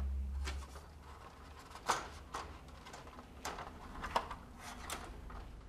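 Light metal clicks and taps, about six spread irregularly, as a galvanized trough is handled and slotted into the front of an all-metal chick brooder.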